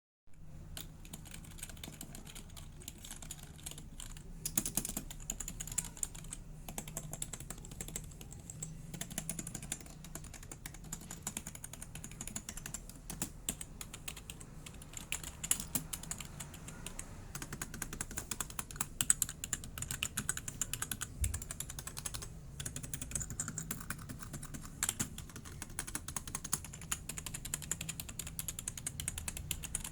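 Typing on an InPlay STX360 membrane keyboard: a steady stream of quick key clicks.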